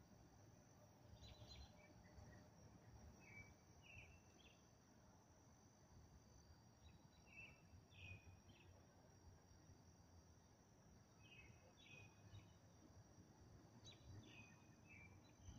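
Near silence with a faint steady high insect trill, and a bird's short chirped phrases repeating every three to four seconds.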